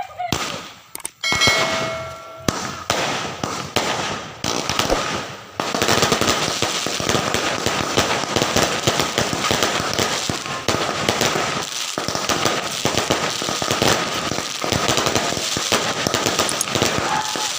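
Fireworks and firecrackers going off. A few separate bangs in the first seconds give way, about six seconds in, to a dense, continuous crackle of many explosions.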